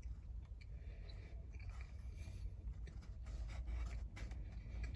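Faint chewing and small rustles of a man eating a soft flour tortilla wrap, with scattered light ticks, over a steady low rumble in a parked car's cabin.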